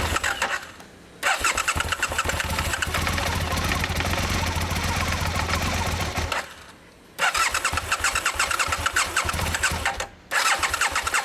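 Aprilia Mille R V-twin engine running with a rapid ticking and knocking, cutting off abruptly three times and coming straight back. The owner is asking what fault the tick and knock point to.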